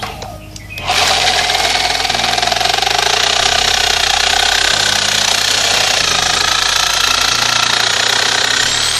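Crafix electric reciprocating saw starting about a second in and running steadily as its coarse-tooth blade saws through a thin-walled bamboo pole.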